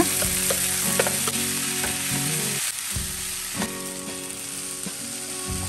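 Hot oil and tempering sizzling in a non-stick frying pan as boiled raw banana and long beans are tipped in and stirred with a wooden spatula. The sizzle dies down after about three seconds, with soft scrapes and taps of the spatula on the pan.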